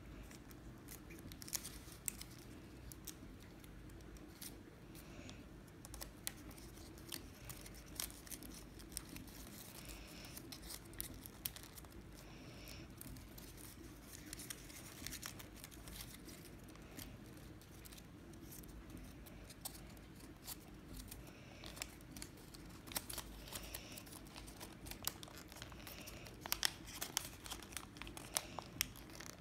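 Origami paper being folded, creased and fitted together by hand: irregular soft crinkles and crackles, louder and denser near the end, over a faint steady low hum.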